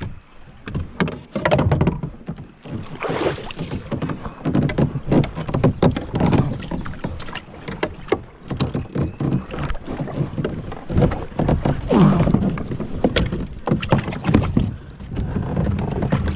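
Water splashing and sloshing around a kayak, with many irregular knocks and clunks against the hull.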